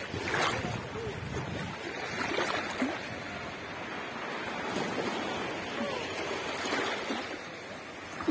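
Shallow sea water washing and sloshing in small waves around the wader, an even wash with a few slightly louder splashes.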